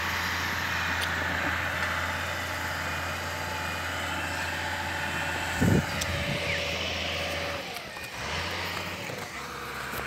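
A vehicle engine running steadily as a low hum that fades out near the end, with one dull thump a little before six seconds in.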